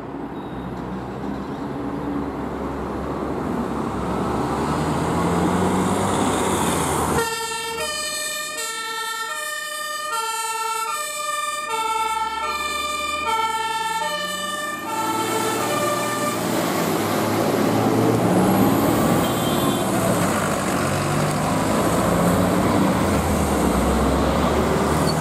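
Emergency vehicle's two-tone siren (German Martinshorn) switching back and forth between two notes roughly every three-quarters of a second, from about seven seconds in until about fifteen seconds in. Heavy vehicle engine and road noise run underneath and continue after the siren stops.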